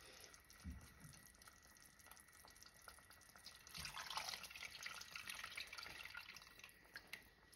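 Tamarind water being poured from a bowl into a pan of simmering paste: a faint splashing trickle from about four seconds in, after a light knock near the start.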